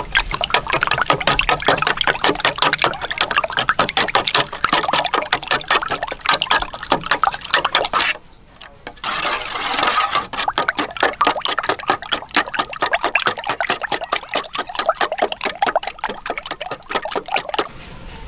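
A metal utensil beating raw duck eggs in a stainless steel bowl: rapid, even strokes of sloshing egg and clicking on the bowl, with a short pause about eight seconds in.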